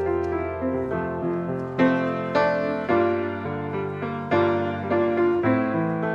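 Grand piano played solo: chords and a melody, each note struck and left to fade.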